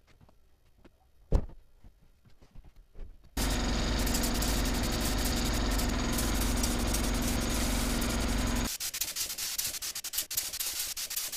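A pneumatic paint spray gun spraying water-based acrylic paint: a loud steady hiss of air over a steady hum, which breaks into short rapid spurts for the last few seconds. Before it, a single sharp knock of wood.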